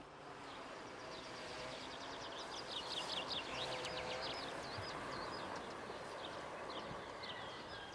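Small birds chirping in rapid, repeated short notes over a steady rural outdoor background.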